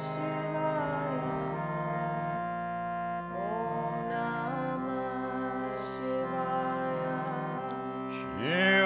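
Harmonium playing sustained drone chords that shift every second or so in a kirtan interlude between chanted lines. Near the end a singing voice slides up and grows louder, entering the next line.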